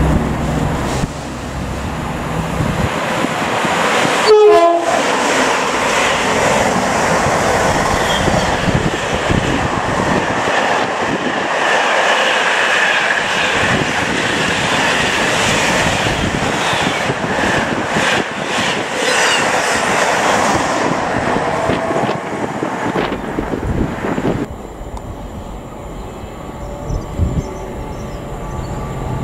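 An express passenger train sounds a brief two-tone horn about four seconds in, then passes through the station at speed with a long rushing rail roar that builds and fades. After a sudden drop in level near the end, a Class 66 diesel freight locomotive is heard approaching more quietly.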